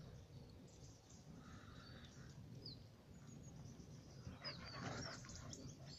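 Quiet outdoor ambience with a few faint, short, high chirps around the middle and near the end, and light rustling.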